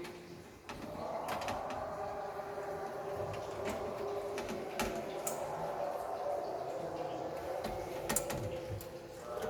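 Scattered light clicks and knocks from a motherboard being handled and set down into a metal PC case, over a steady background hum.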